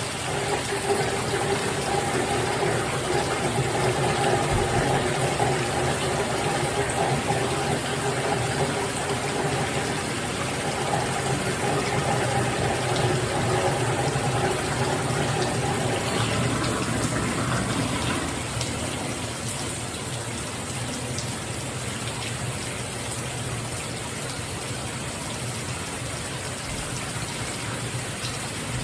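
Shower running, water spraying steadily from a freshly cleaned shower head. A faint steady tone under the spray fades, and the sound drops a little, about two-thirds of the way through.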